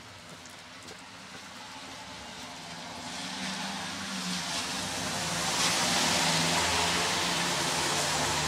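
A car approaching on a wet street: the hiss of tyres on wet asphalt and a low engine hum grow louder from about three seconds in, over steady rain.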